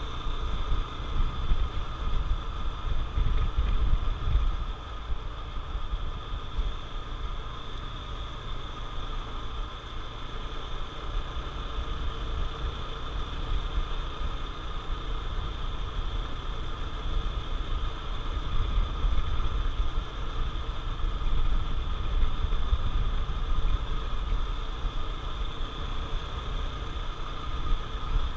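Honda CT125 Trail's 125 cc air-cooled single-cylinder four-stroke engine running steadily under way, heard over a dense low rumble of wind and road noise on the helmet camera.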